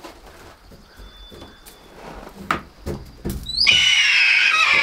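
A few light knocks, then about three and a half seconds in a hawk gives a loud, harsh scream lasting about a second.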